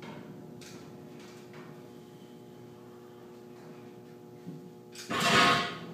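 Footsteps climbing steel stairs onto a steel catwalk landing, then one loud metal clang about five seconds in.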